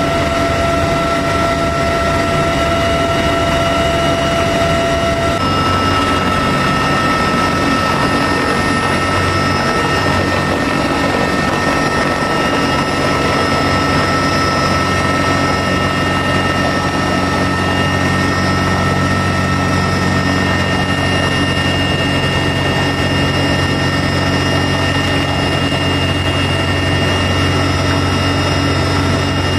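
Cabin noise of a CH-53E Super Stallion heavy-lift helicopter in flight with the rear ramp open: loud, steady rotor and turbine noise with high whining tones. About five seconds in the whine shifts pitch and a low hum grows stronger.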